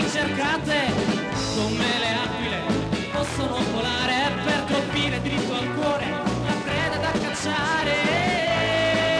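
Live pop-rock band music on keyboards and drum kit, with a singer at the microphone. A long steady note comes in near the end.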